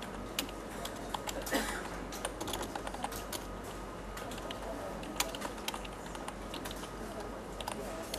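Computer keyboard being typed on, a run of irregular key clicks as a short configuration file is entered in a text editor.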